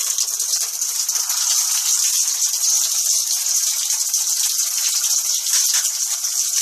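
Steady, high rushing hiss of running water.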